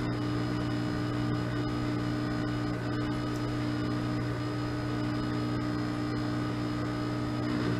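Riehle torsion testing machine running with a steady electrical hum while its loading dial is turned, slowly applying twisting load to a steel test bar. One of the higher hum tones drops out right at the end.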